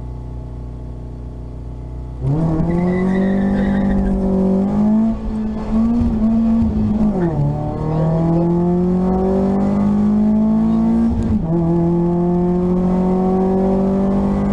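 VW Lupo GTI's 1.6-litre four-cylinder engine heard inside the cabin. It idles for about two seconds, then launches hard from a standing start. It revs up through the gears, and its pitch falls back at each gear change, clearly about seven and eleven seconds in.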